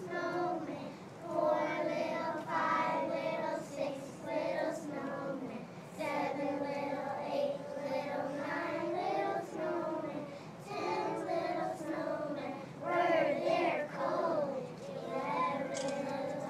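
A group of kindergarten children singing a song together, their voices in unison with short breaks between phrases.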